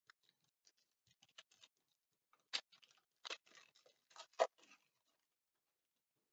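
Foil trading card pack wrapper being torn open and crinkled by hand: soft scattered crackles, with a few sharper crinkles and tears in the middle that stop about three-quarters of the way through.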